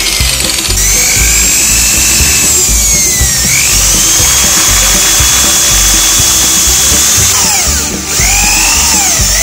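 Electric drill boring into the end of a rosewood knife handle, its high motor whine sagging in pitch under load and climbing back, a few seconds in and again near the end. Background music plays along.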